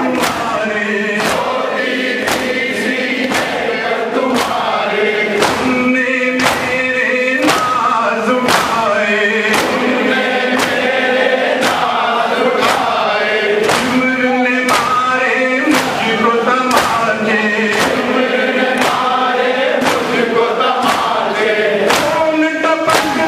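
A male reciter chants a noha (mourning lament) into a microphone, and a crowd of men chants along with him. Under the chant runs the steady rhythmic slapping of the crowd's chest-beating (matam), a little under two strikes a second.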